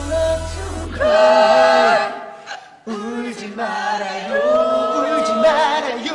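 Singing: long held vocal notes that waver near the end, with a brief break about halfway through.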